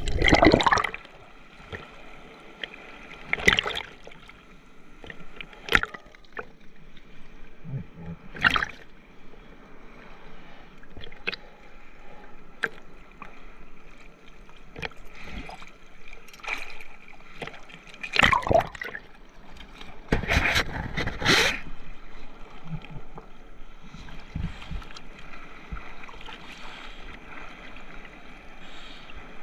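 Choppy sea water sloshing and splashing, with irregular louder splashes breaking in every few seconds, the biggest ones near the two-thirds mark.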